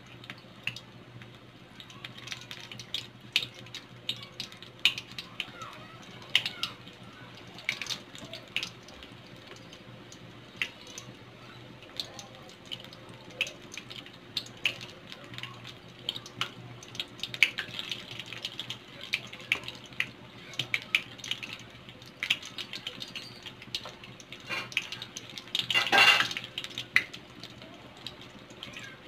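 Battered green chillies (chilli bajji) deep-frying in hot oil in a kadai: a steady sizzle with frequent sharp crackles and pops. Near the end comes a louder clatter, about a second long.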